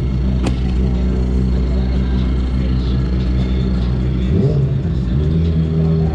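Race motorcycle engine idling steadily while the bike stands still, with a brief dip and rise in engine note about four and a half seconds in. A single sharp click sounds about half a second in.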